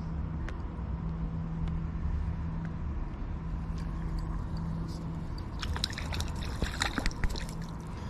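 A small dace splashing at the water surface as it is reeled in and lifted out, a flurry of splashes from about five and a half to seven and a half seconds in, over a steady low hum.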